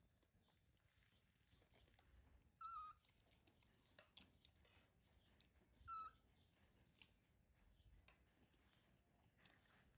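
Baby monkey giving two short, high-pitched calls about three seconds apart, with faint clicks and taps in between.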